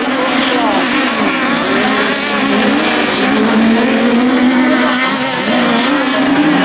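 Several 1600-class autocross buggy engines running hard at high revs, their pitches wavering up and down and overlapping as the cars race past on dirt.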